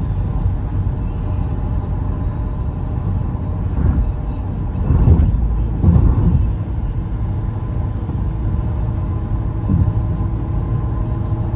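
Tyre and road noise of a car driving on the highway, heard inside the cabin: a steady low rumble with a faint steady hum above it, swelling louder briefly about five and six seconds in.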